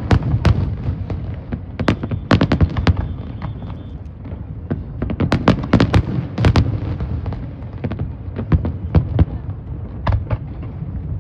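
Fireworks going off: an irregular string of sharp bangs and pops over a continuous low rumble. The bangs come thickest around two seconds in and again from about five to seven seconds in.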